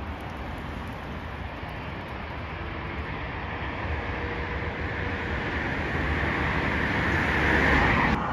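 Jet airliner engines, a steady rushing roar that grows louder over several seconds and cuts off suddenly near the end.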